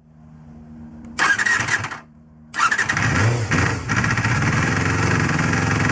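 Honda MC23 Jade's 250 cc inline-four (MC14E) engine being started after reassembly: it fires for under a second, falters, then catches about two and a half seconds in and keeps running.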